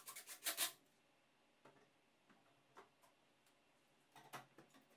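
A Bosch cordless drill briefly driving a screw into a 3D-printed plastic bracket, a short burst of grinding at the very start, followed by a few faint scattered clicks and taps.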